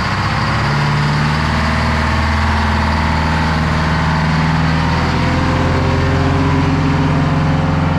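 A large engine running steadily and loudly, cut in abruptly and fading out at the end.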